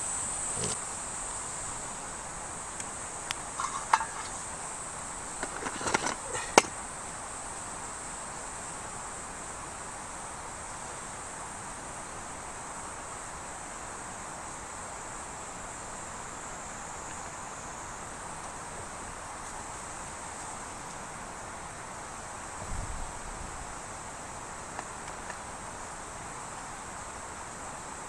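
Steady high-pitched drone of insects calling, with a few sharp clicks and knocks between about three and seven seconds in, and one soft low thump later on.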